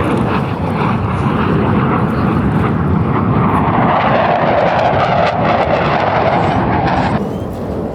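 Blue Angels F/A-18 Super Hornet jet roaring overhead, swelling to its loudest in the middle of the pass, then cut off suddenly near the end.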